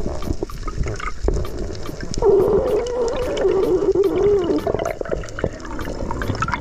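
Underwater sound during a spearfishing dive: a steady scatter of small clicks and crackles, with a wavering tone for about two seconds in the middle.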